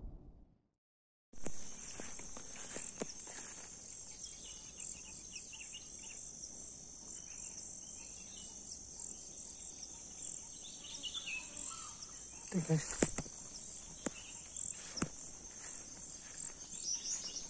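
A whoosh fades out, and after a moment of dead silence a steady high-pitched insect chorus sets in, about a second and a half in. A few soft knocks and rustles come in the second half.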